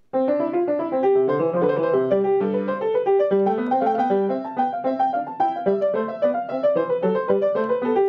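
Piano music, a quick flowing run of notes that starts abruptly.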